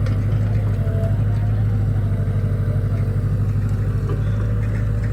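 Heavy diesel engine running steadily, with a loud, low, even drone that pulses quickly.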